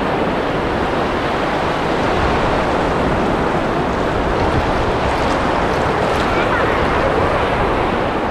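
Gulf of Mexico surf washing in over flat sand at the waterline: a steady rush of small breaking waves and foam.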